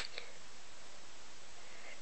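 Quiet room tone: a steady faint hiss of the recording's background, with no distinct event.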